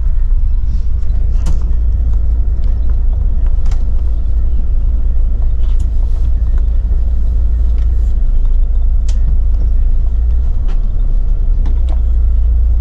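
Intercity coach on the move, heard from inside the cabin: a steady low rumble of engine and road, with occasional light clicks and rattles.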